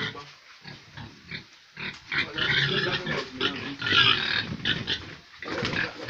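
A pig squealing in loud, harsh bursts as it is held and handled, strongest from about two seconds in until shortly before the end, with quieter, lower grunting before that.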